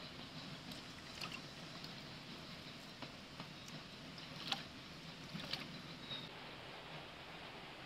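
Shallow stream water trickling faintly, with a few small splashes and drips as a leaf is dipped and rinsed in it by hand. The sharpest splash comes about halfway.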